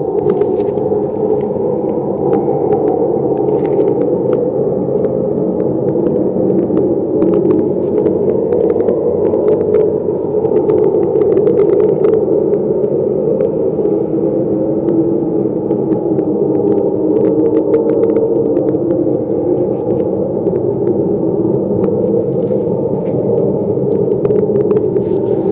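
A loud, steady, noisy drone sitting low in pitch, presented as one of the unexplained 'strange sounds'. Faint scattered clicks run above it.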